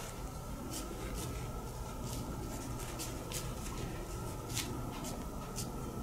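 Chinese ink brush brushing and dabbing on rice paper as ink wash is laid in hemp-fibre texture strokes: faint, irregular soft swishes and taps, one or two a second.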